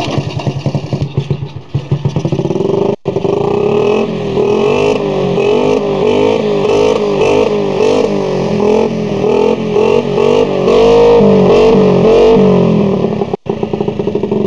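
Moped engine starting, then revved up and down again and again with short blips of the throttle. The sound breaks off for a moment twice.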